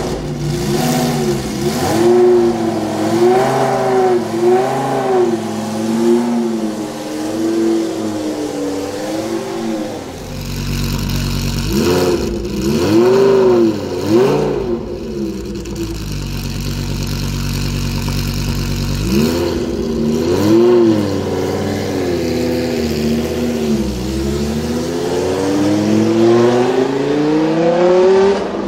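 2015 Lamborghini Huracán Super Trofeo's 5.2-litre naturally aspirated V10 idling and being blipped in quick runs of short rev blips, dropping back to idle in between. Near the end the revs rise in one slower, longer climb.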